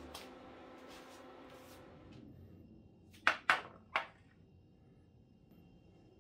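Three sharp knocks in quick succession a little over three seconds in, as a ceramic plate is set down on a wooden table. The tail of background music fades out at the start.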